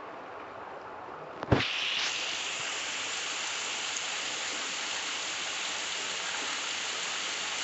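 Steady rain falling, a constant hiss. About a second and a half in there is one sharp knock, after which the rain sounds louder and brighter and stays that way.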